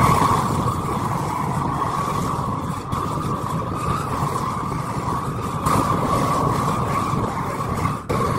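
Blowtorch flame running steadily as it singes the fur off red squirrel carcasses, with a brief break near the end.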